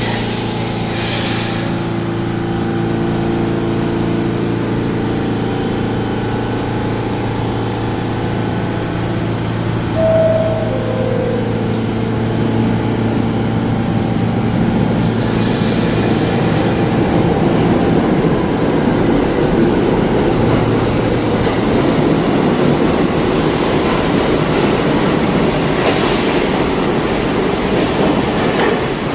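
New York City subway train standing in the station with its motors and equipment humming steadily. A two-note falling door chime sounds about ten seconds in. From about halfway through, the train's rumble and wheel noise build as it moves off along the track.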